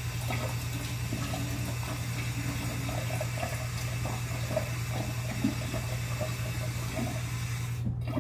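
Kitchen tap running steadily as cold water is drawn, shut off suddenly near the end.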